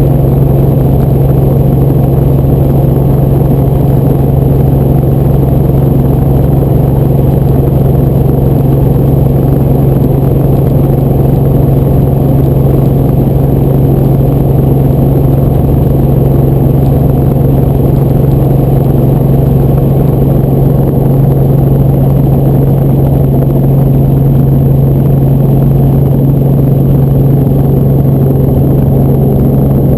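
A helicopter's engine and rotors heard from inside the cabin: a loud, steady drone with a strong low hum that does not change.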